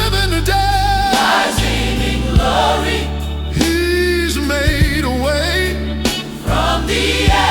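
Gospel song: voices singing with a wavering vibrato over choir-like backing and steady bass notes.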